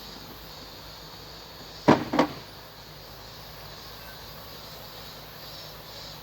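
Two sharp knocks from the repair work, about a third of a second apart, over a steady background noise.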